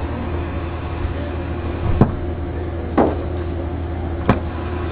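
A steady low electrical hum with three sharp clicks, the first two about a second apart and the third a little over a second later.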